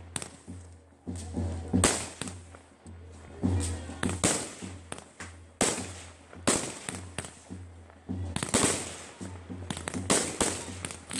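Aerial fireworks going off: a string of sharp bangs from bursting shells, irregularly spaced about a second apart and sometimes in quick pairs, each with a crackling tail.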